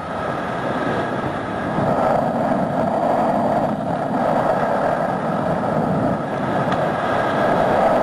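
Steady rush of wind over a helmet-mounted camera during a skydive, swelling and easing.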